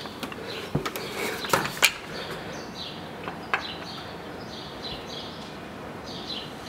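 Small birds chirping: short, high, falling calls repeated every half second or so from about two seconds in. A few sharp knocks and clatters come in the first two seconds.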